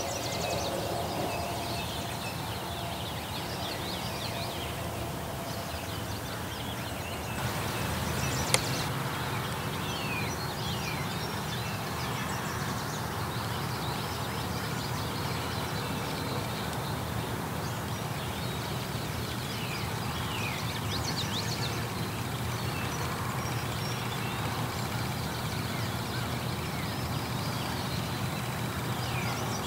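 Small birds chirping, short high falling notes scattered throughout, over a steady low outdoor rumble. A single sharp click about eight and a half seconds in.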